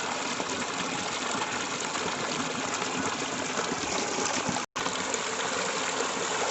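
Steady rush of running, gushing water, cut off for an instant about four and a half seconds in.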